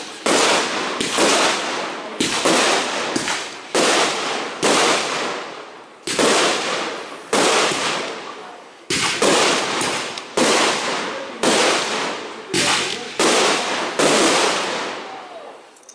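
Aerial fireworks shells bursting in quick succession, a sharp bang about once a second, each one trailing off over about a second before the next.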